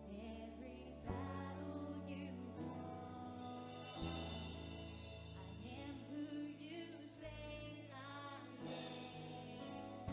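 Live worship band playing with singing voices, over sustained low chords, with two drum hits about a second in and about four seconds in.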